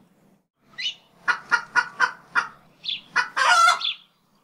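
A hen cackling: a run of about five short clucks roughly a quarter second apart, then one longer drawn-out squawk near the end.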